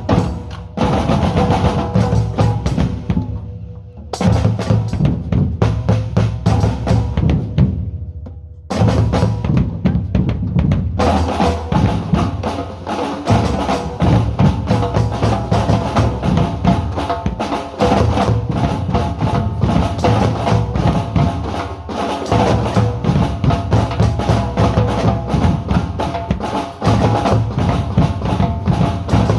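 Ensemble of drums playing a fast, dense rhythm with deep bass-drum strokes and snare-like hits. The playing breaks off briefly twice in the first nine seconds, then runs on unbroken.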